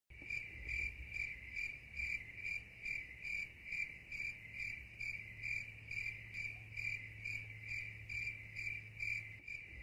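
Cricket chirping in a steady, even rhythm, a little over two chirps a second, with a faint low hum beneath.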